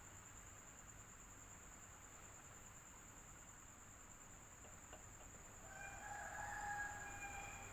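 Electric fan running steadily, a soft whir with a constant thin high tone. About six seconds in, a single drawn-out pitched call lasting about a second and a half sounds faintly over it.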